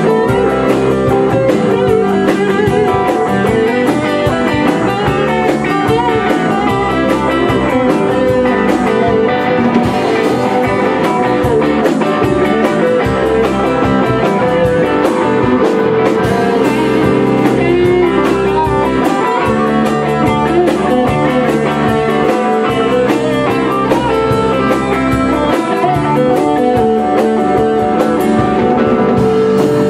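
A rock band playing live: electric guitars through amplifiers over a drum kit, a steady blues-rock groove.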